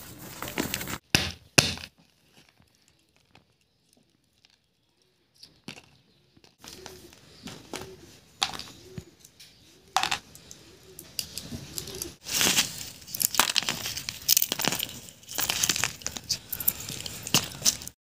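Walnut shells cracking and crackling as they are broken apart by hand, with a few sharp snaps and then dense crackling in the last several seconds.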